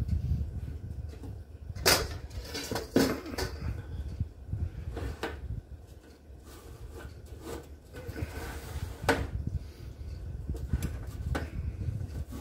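Kitchen utensils being handled: metal tongs and a copper mesh crisper tray clinking and knocking against a steel bowl and a glass stovetop. The knocks are sharp and irregularly spaced, with a low rumble underneath.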